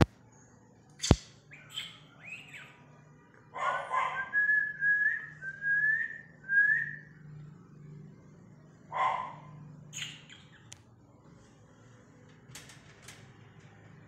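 Indian ringneck parakeets of a breeding pair calling softly while billing beak to beak: rough chatter, then a run of four short rising whistled notes, with more chatter a few seconds later. A sharp click sounds about a second in.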